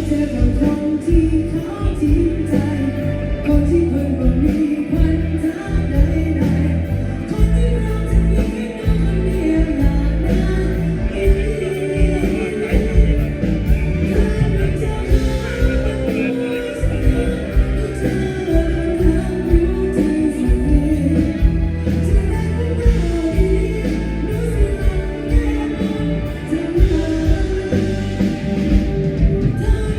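Loud live band music with a singer singing over a steady bass and drum beat.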